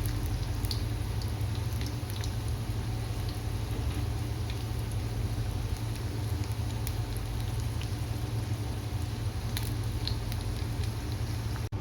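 Chicken ullivada (batter-coated onion and chicken fritters) deep-frying in hot oil: a steady sizzle with scattered small pops and crackles, over a low steady hum.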